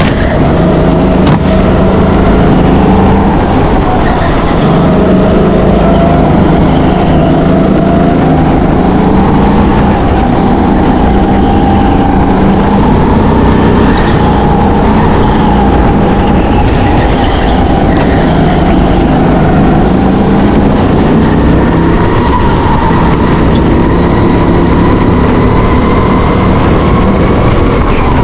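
Go-kart engine heard from on board, running hard through a lap, its pitch rising and falling repeatedly as the kart accelerates out of corners and lifts into them.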